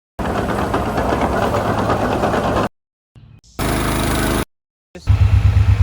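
Machine engines running in three short, abruptly cut clips separated by brief silences, the last with a heavy low throb.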